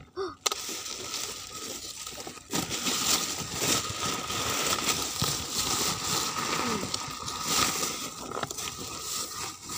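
Black plastic bubble wrap rustling and crinkling as it is pulled off and handled, with many small crackles throughout.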